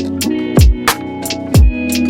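Background music with a steady beat: a deep kick drum about once a second under sharp hits, held chords and plucked notes.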